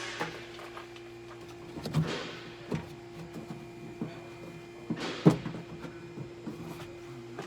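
Scattered knocks, clicks and clunks of hand work inside a car door, with the loudest, a sharp knock, about five seconds in, over a steady hum.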